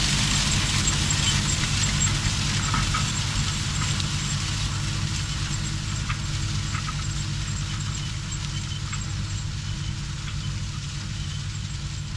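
Tractor engine running steadily with a broad hiss over it, slowly getting quieter.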